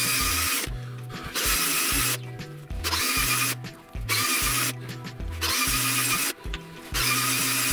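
Cordless drill with an 8 mm bit running in short bursts, about five of them, each under a second, as it bores out the centre holes of small wooden discs. Background music with a steady bass line plays underneath.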